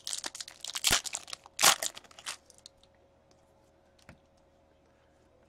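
A shiny wrapper on a hockey trading-card pack being torn open and crinkled: crackling for about two seconds, with two louder rips. It then goes quiet apart from a single faint click.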